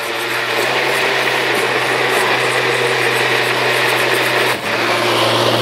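Countertop blender running steadily, a motor hum under an even whir as it blends a batter. It dips briefly once and cuts off near the end.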